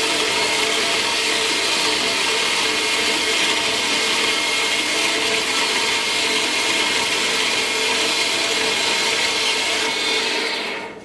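Power metal-cutting saw running and cutting through steel bar stock clamped in its vise: a steady, loud sawing noise with a ringing tone, fading out near the end.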